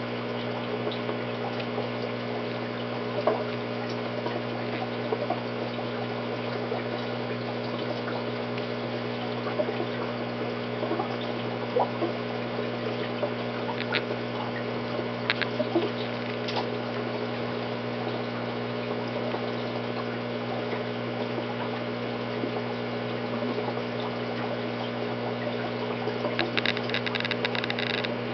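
Aquarium filter running: water trickling and splashing over a steady electric hum, with scattered small pops and, near the end, a brief run of quick ticks.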